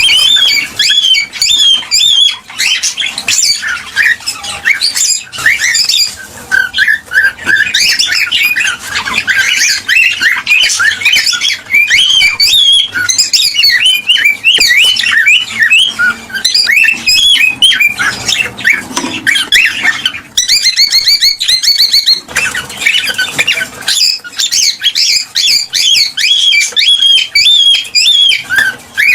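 Cockatiels chirping, whistling and squawking continuously in rapid, overlapping calls, the kind of excited male song played to bring a pair into breeding condition. A fast trill of rapidly repeated notes comes about two-thirds of the way in.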